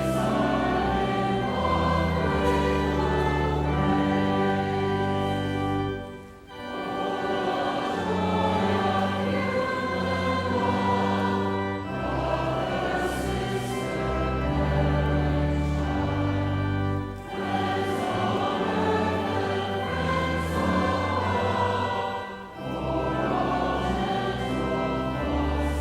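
Choir and congregation singing a hymn over sustained low accompaniment, with short breaks between the sung lines three times.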